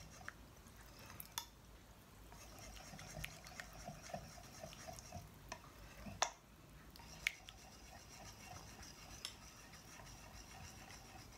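Metal balloon whisk beating a thin flour, water and milk batter in a glass bowl: a faint, fast, even stirring patter with a few sharp clicks of the wires against the glass.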